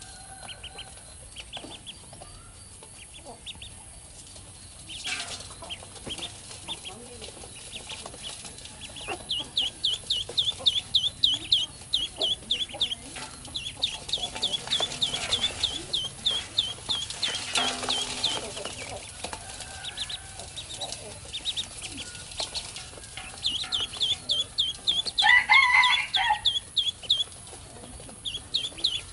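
Baby ducklings peeping: runs of rapid, high, downward-sliding chirps, several a second, getting louder and busier partway through. Near the end a single lower, harsher call cuts through the peeping.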